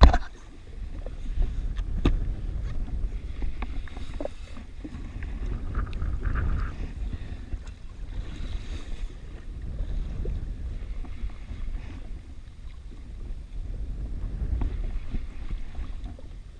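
Wind buffeting the microphone and choppy sea slapping against a jet ski's hull, with scattered small clicks and knocks as a fishing reel is wound in. A single sharp knock right at the start is the loudest moment.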